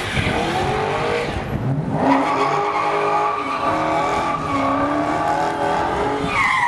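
Car tires squealing in a drag-strip burnout over the running engine. The engine rises in pitch in the first couple of seconds, then a long wavering tire squeal sets in, jumping higher near the end.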